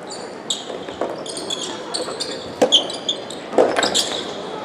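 Sneakers squeaking on an indoor court floor during soft tennis play: many short, high squeaks in quick succession, with several sharp knocks among them.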